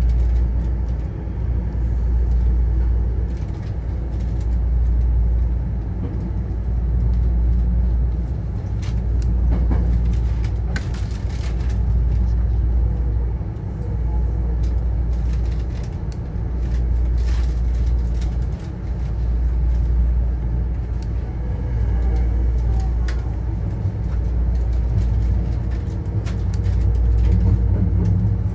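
Hankyu Kyoto Line electric train running along the line, heard from just behind the driver's cab: a steady low rumble that swells and eases slowly, with occasional sharp clicks.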